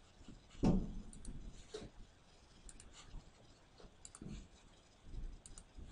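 Faint computer mouse clicks, several in quick pairs, with a few soft low thumps between them.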